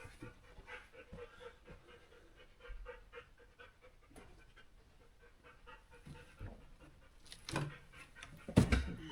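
A dog panting softly in quick, even breaths, with a couple of louder thumps near the end.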